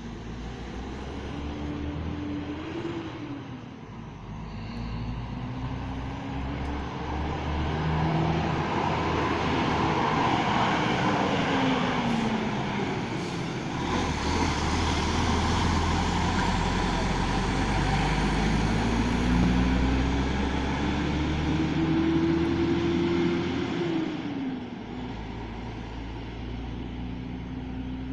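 Mercedes-Benz O500 RSD coach's diesel engine pulling hard, revs climbing and falling. The pitch drops sharply about three seconds in and again about 24 seconds in, as at gear changes.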